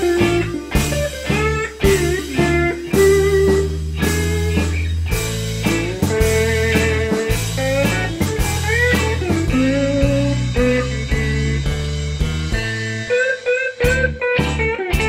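Electric guitar played with a slide, picking out a bluesy instrumental melody in gliding, wavering notes over a backing track with a steady bass line. The bass drops out for a moment near the end.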